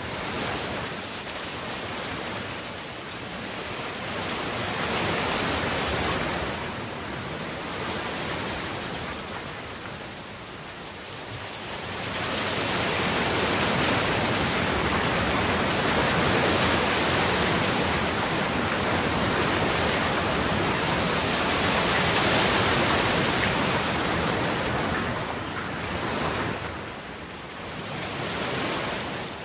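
Heavy rain, a dense even hiss that swells to its heaviest about twelve seconds in and eases again near the end.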